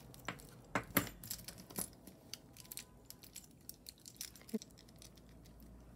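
Costume jewelry being handled: a necklace's beads and chain clinking and ticking in irregular light clicks as it is turned over in the hands.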